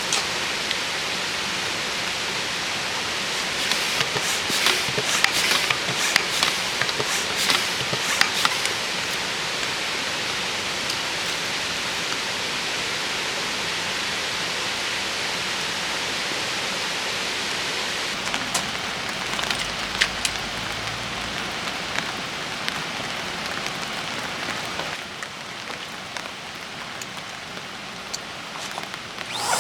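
Steady rainfall, an even hiss with scattered sharper drop impacts that come thickest between about three and nine seconds in, easing slightly near the end.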